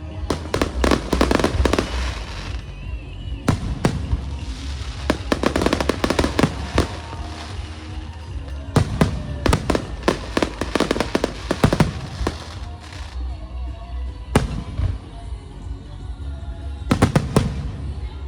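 Fireworks going off in rapid volleys of crackling bangs, about five bursts of cracks with short lulls between them.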